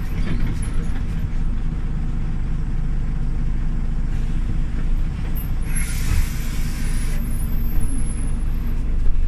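Inside a Scania OmniLink city bus: the engine drones steadily. About six seconds in there is a hiss of released compressed air lasting about a second.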